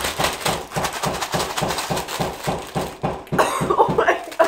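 Plastic snack bag of crushed dry ramen and seasoning shaken hard, about five shakes a second, the noodle pieces rattling inside. The shaking stops about three seconds in and gives way to coughing from breathing in the spice powder, with laughter.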